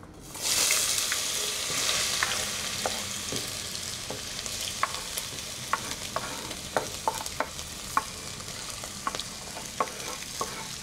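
Diced raw potatoes dropped into hot oil in a clay cazuela: a sizzle that starts about half a second in, loudest at first and then settling into a steady frying hiss. Light clicks of a spoon scraping the potatoes off a wooden board come through it.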